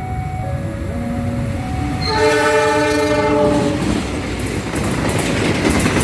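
Railway locomotive's S35 air horn sounding one loud chord of several tones for about a second and a half, then the train passing with a rising rumble and wheel clatter on the rails.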